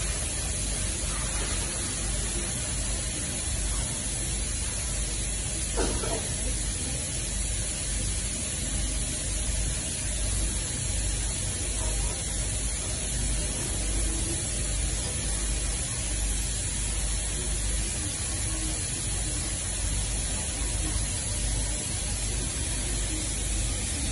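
Flatbed inkjet printing and cutting machine running: a steady airy hiss over a low hum. There is one brief knock about six seconds in.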